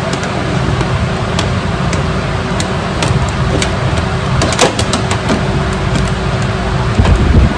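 A steady low rumbling noise with scattered light clicks and taps, a cluster of them about halfway through.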